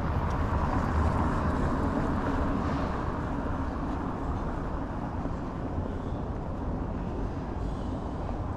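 Steady street noise with a traffic rumble, swelling a little about a second in and easing off after a few seconds.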